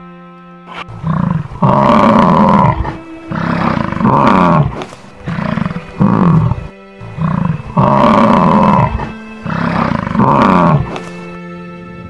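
Big cat roaring: a series of about ten short, loud roars, each under a second, some dropping in pitch, over background music.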